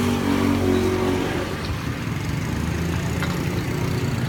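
Hot oil sizzling around battered pieces deep-frying in a large steel bowl, under a steady engine hum from a motor vehicle. For about the first second the hum carries a pitched drone, which then settles into a lower steady hum.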